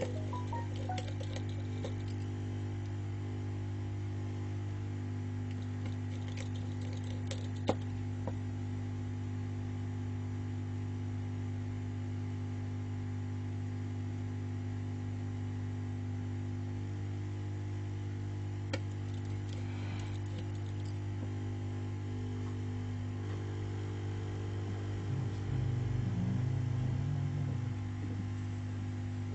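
Steady electrical mains hum, with a few light clicks of small parts being handled during phone repair and a brief louder low swell near the end.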